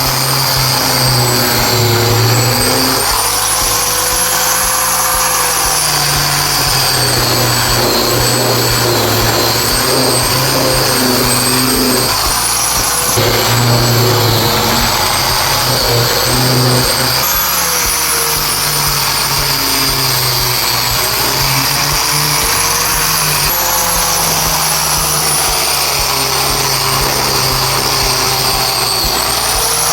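Electric power tool motor running continuously under load, a loud noisy whine whose pitch slowly wavers up and down, with a few sudden jumps.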